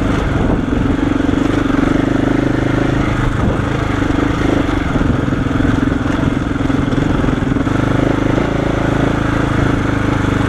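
KTM 690 Enduro's single-cylinder engine running at low, fairly steady revs as the bike climbs a rough trail.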